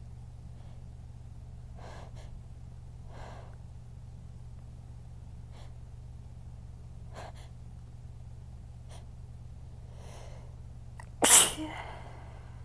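A single strong human sneeze near the end, sudden and brief, after several quiet breaths as it builds. It is one of a fit of hard sneezes that burn and hurt the throat. A steady low hum runs underneath.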